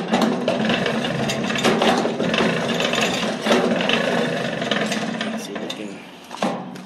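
Hand-cranked blower of an old coal forge turning over, its gears and belt whirring and clattering with a steady hum as it pushes air up into the firepot. It slows and fades near the end.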